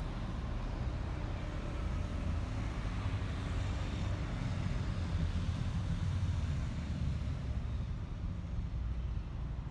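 Steady low outdoor rumble with a hiss over it and no distinct events, the kind made by distant road traffic or wind on the microphone.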